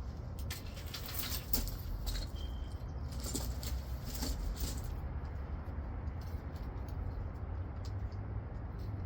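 Scattered light clicks and rattles, like small objects being handled, in the first half, over a steady low hum.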